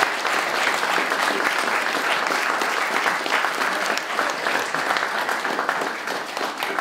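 Guests applauding steadily, a dense round of many people clapping.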